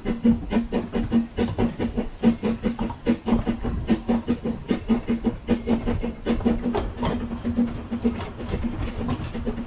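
Narrow-gauge steam locomotive running along the line, heard up close: a rapid, uneven clatter of clicks and knocks over a steady low tone.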